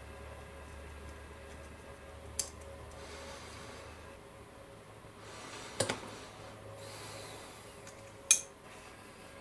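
Hard plastic model-kit parts of a 1/6-scale machine-gun tripod clicking and tapping as they are handled and fitted together: a few sharp clicks, a double one mid-way and the loudest near the end.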